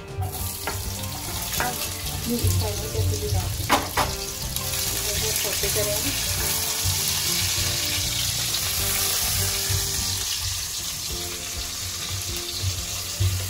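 Chopped onions frying in oil in a pan, with a steady sizzle that grows fuller about four seconds in. A few knocks of a utensil against the pan come in the first few seconds.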